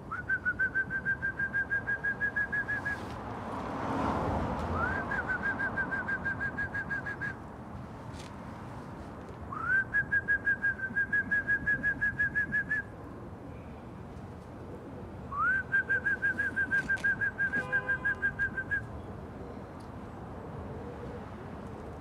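A man whistling to call his flock of pigeons home: four long whistles, each sliding up at the start and then held on one high pitch with a quick warble of about five pulses a second, with short pauses between them.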